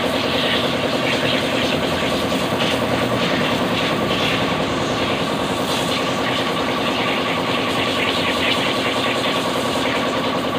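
A motor running steadily with a rapid, even pulsing hum.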